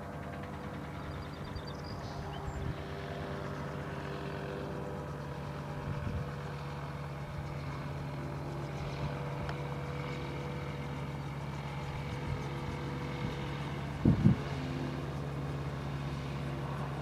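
DTA J-RO gyrocopter's turbocharged Rotax 914 flat-four engine running at low power while taxiing, a steady hum that grows slightly louder as it comes closer. A brief double thump about fourteen seconds in is the loudest sound.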